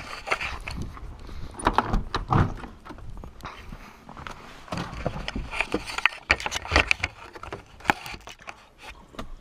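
A Jeep Cherokee's door opened and someone climbing into the seat: an irregular jumble of clunks, knocks and rustling, with the loudest clatter in two clusters, about two seconds in and again around six to seven seconds.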